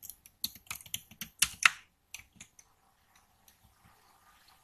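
Typing on a computer keyboard: a quick run of about a dozen key presses over roughly two seconds, then a few stray taps.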